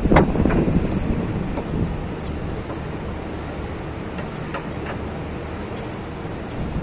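Hand tools at work on a car's steering tie rod end: one sharp metallic knock just after the start, then a few faint ticks over a steady low background rumble.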